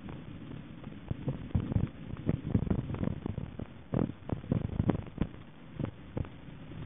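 Mountain bike jolting down a rough woodland trail, heard from the handlebars: irregular knocks and thumps as the bike hits bumps, over a low rumble of the tyres and wind.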